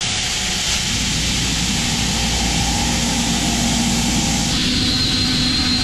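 A vertical machining centre's spindle is running an end mill that mills a round hole into a metal plate, a steady loud machine noise. A high whine sets in about four and a half seconds in, as the cutter is into the cut.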